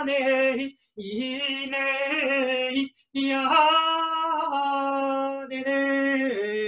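A woman's unaccompanied, wordless improvised singing: long held notes, some with vibrato, in three phrases separated by short breaths about one and three seconds in.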